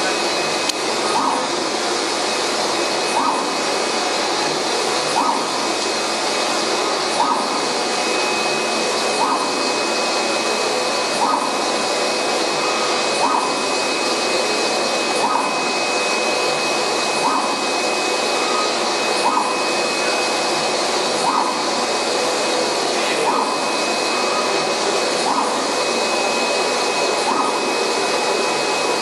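UV flatbed printer running: a steady whoosh of blowers and fans with a constant high whine, and a short rising chirp about every two seconds as the print carriage sweeps back and forth across the bed.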